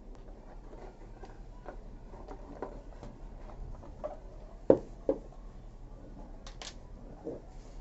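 Small clicks and knocks of Whirlpool top-load washing machine tub parts being handled and fitted back together, with two louder knocks close together about five seconds in.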